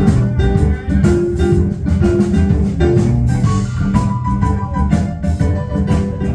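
A band playing an instrumental groove: drum kit keeping a steady beat under a bass line, with a short melodic riff repeating over it.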